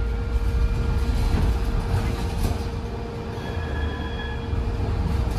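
Interior running noise of a Siemens LRV4 light rail car in motion: a steady low rumble of wheels on rails with a constant hum. A thin high-pitched whine rises above it for about a second a little past the middle.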